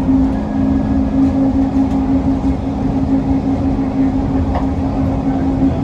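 DFW Skylink automated people-mover train running between stations, heard from inside the car: a steady motor hum over low running rumble, with a single click about four and a half seconds in.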